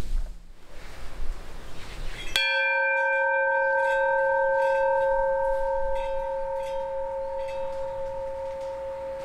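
Low wind rumble, then about two and a half seconds in a bell struck once, ringing on in a steady two-note hum that slowly fades.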